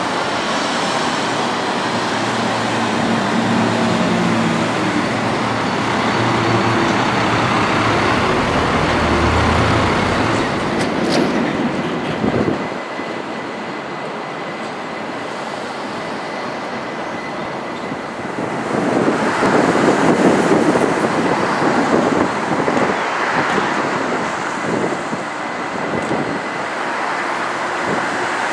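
City street traffic. A vehicle's motor runs with a low, steady hum and then stops abruptly about twelve seconds in, and later a louder rush of passing vehicles follows.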